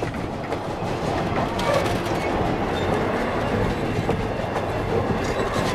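Railroad passenger coaches rolling past close by: a steady rumble with steel wheels clicking over the rails.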